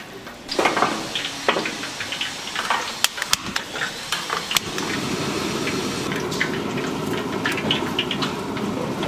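Kitchen work sounds: a few sharp clattering knocks, then a steady hiss from about five seconds in, with light crackling over it.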